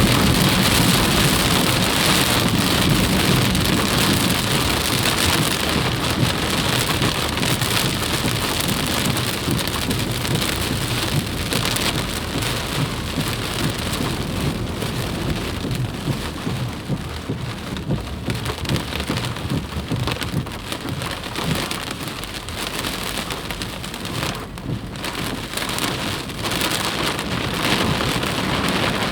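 Floodwater rushing in a flash flood: a dense, steady noise of water, dipping slightly in level partway through.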